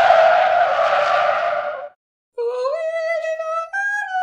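A tyre-screech sound effect for about two seconds, cut off suddenly. After a short gap, a pitched tune of held notes begins, sliding up at first and then stepping higher.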